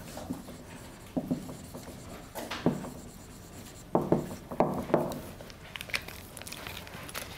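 Marker pen writing on a whiteboard: a series of short strokes, several in quick succession about four to five seconds in.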